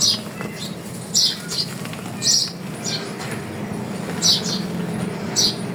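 Dry chalk being crushed and crumbled, giving short crisp crunches, often in pairs, about once a second, over a steady low hum.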